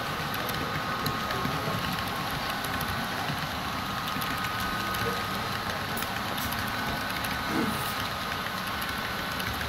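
Model freight train of autorack cars rolling past on the layout track: a steady running noise with faint steady tones.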